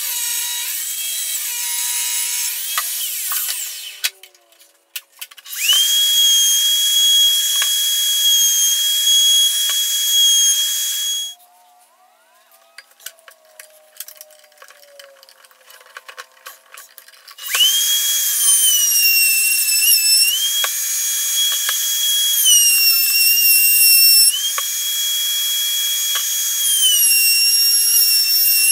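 Benchtop table saw finishing a cut through a maple board, then a Skil router in a router table running with a high steady whine. It stops for a few seconds of clicks while being adjusted, then starts again to rout the board's edge, its pitch dropping each time the bit bites into the maple and rising again as it frees up.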